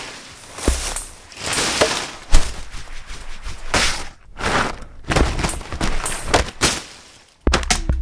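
Leaves and foliage being handled close to the microphone: rustling and crumpling, broken by sharp snaps of stems or twigs, the loudest a little over two seconds in.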